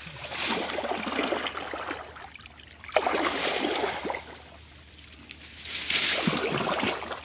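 Shallow muddy pond water splashing and sloshing in three bursts, each a second or two long, as the water is stirred.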